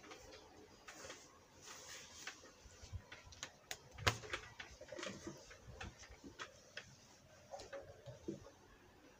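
Scattered light clicks and taps from a phone being handled close to its microphone, the sharpest about four seconds in.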